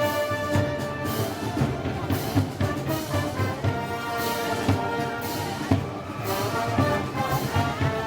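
Brass band music of the Moros y Cristianos festival type, with held brass notes over steady drum and cymbal strokes.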